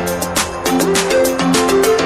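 Background music with a steady beat of about four strikes a second under plucked, held melody notes.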